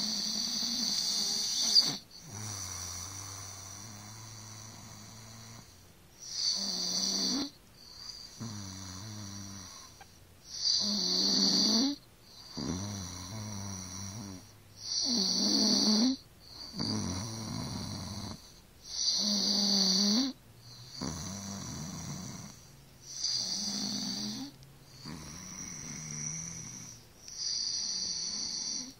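Snoring in a slow, even rhythm, about one strong snore every four seconds, each followed by a quieter, lower-pitched one.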